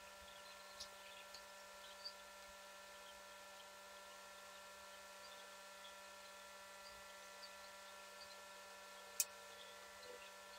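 Near silence with a steady faint electrical hum made of several pitches. A few faint clicks come through, and one sharper click about nine seconds in.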